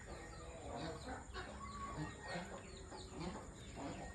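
Chickens clucking, with many short calls overlapping.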